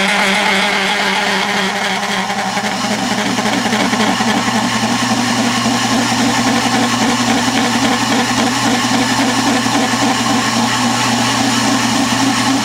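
Metal lathe running with a cutting tool plunging into a spinning metal bar: a steady motor hum under a rough, wavering chatter of the tool against the work, which grows stronger about two seconds in.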